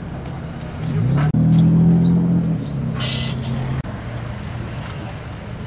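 A car's engine revving up about a second in as it pulls away, then easing back to a lower steady note, with a short hiss near the middle.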